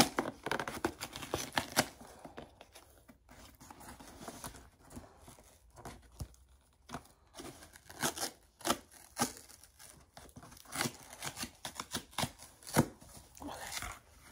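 Cardboard shipping box being opened by hand: packing tape and cardboard ripping and crinkling in short, irregular rips and crackles, loudest right at the start and again near the end.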